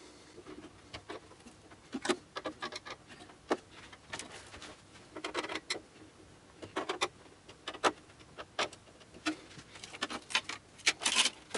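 Scattered light clicks and taps of a screwdriver and hands working on case-fan mounting screws inside a PC case, irregular and of varying loudness.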